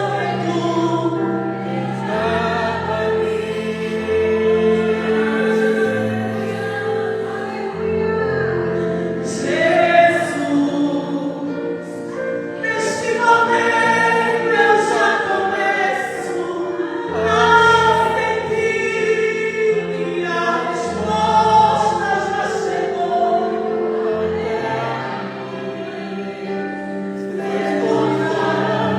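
Choir singing gospel music, held notes over a low sustained accompaniment.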